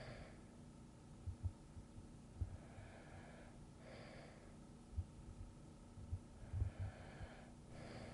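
A sleeping person breathing slowly and softly, two full breaths in and out about four seconds apart, with soft low thumps scattered between them.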